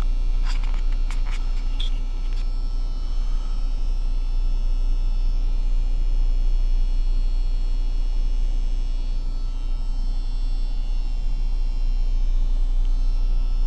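Steady low rumble and hum of room noise with a few faint high whines, and a handful of short clicks in the first couple of seconds.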